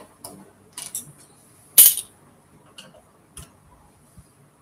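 Small metal clicks and taps from hand tools and parts being worked on a Singer sewing machine under repair: a handful of separate sharp clicks, with one louder, slightly longer clattering click about two seconds in.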